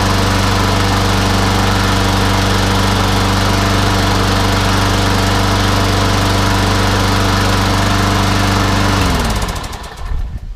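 Hayter Ranger 53 rotary mower's petrol engine running at a steady speed, then switched off about nine seconds in, its note falling as it runs down to a stop.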